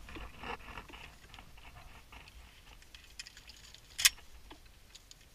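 Handling noise: scattered light clicks and rustling, with one sharp click about four seconds in.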